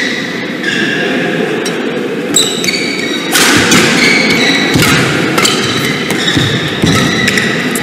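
Badminton rally: sharp strikes of racket on shuttlecock, and short squeaks of players' shoes on the court mat.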